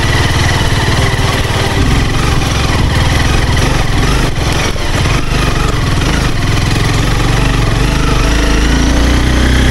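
Honda CBR250R motorcycle engine running under way on a rough dirt track, with road and wind noise and a cluster of knocks from bumps about four to five seconds in. The engine pitch rises near the end.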